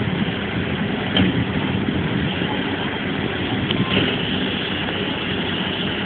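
Tractor engine running steadily, with two brief knocks about one and four seconds in.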